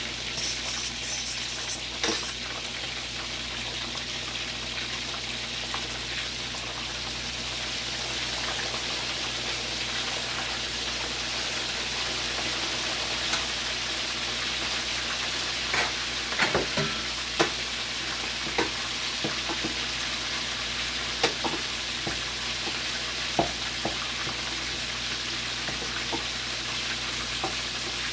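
Chicken leg quarters frying in hot oil to crisp the skin: a steady sizzle with scattered pops and sharp clicks, a flurry of them in the first couple of seconds.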